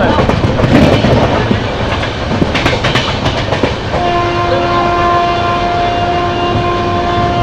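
Train running along the rails, with a patch of wheel clatter over rail joints about two and a half seconds in. About four seconds in, a train horn starts a long, steady blast.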